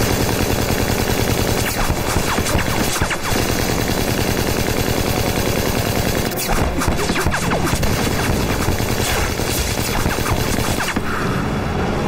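Fighter plane's machine guns firing in long, rapid bursts, with a couple of brief breaks.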